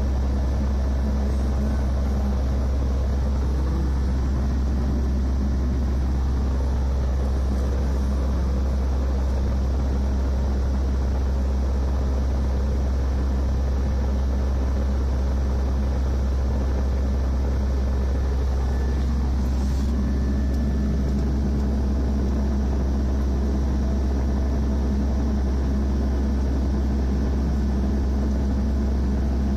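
Caterpillar 375L excavator's diesel engine idling steadily, heard from inside the cab as an even, low rumble.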